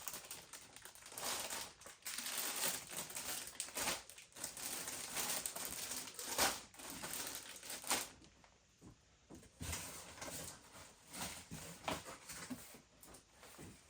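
Plastic bags crinkling as bagged plastic model-kit sprues are handled, for about eight seconds, then quieter scattered light clicks and taps of plastic parts being set down.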